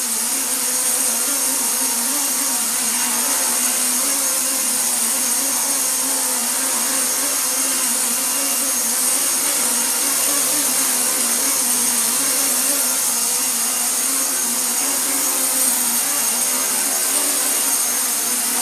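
Remote-control helicopter in flight: a steady motor whine and rotor buzz whose pitch wavers slightly as it is steered.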